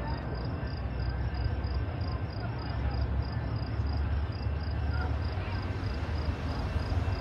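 Crickets chirping in an even, regular pulse, about two chirps a second, over a low steady rumble.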